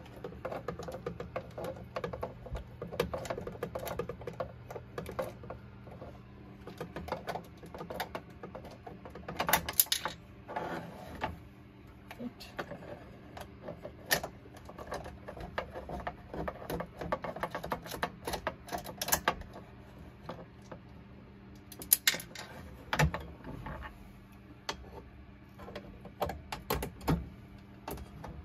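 Small screwdriver working the terminal screws on an inverter's battery breaker: a steady run of small metallic clicks and ticks, with a few louder clacks about ten seconds in and again near twenty-two seconds.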